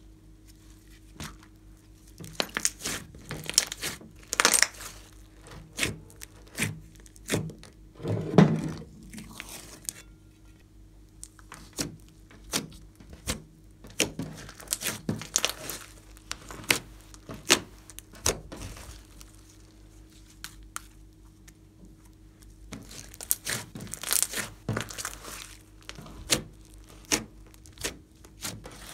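Slime mixed with clay and glitter being kneaded and stretched by hand, giving irregular clusters of sticky crackles and pops.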